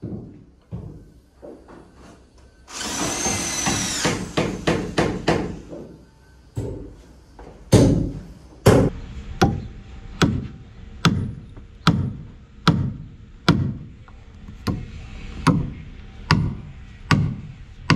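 Cordless drill running briefly into hardwood about three seconds in, then a steady run of hammer blows, roughly one every three-quarters of a second, driving fastenings into the stanchions and shear plank of a wooden boat hull.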